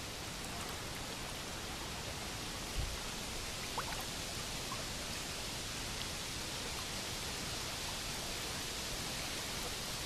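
River water flowing past a drifting boat, a steady even hiss of running water, with a soft low bump about three seconds in.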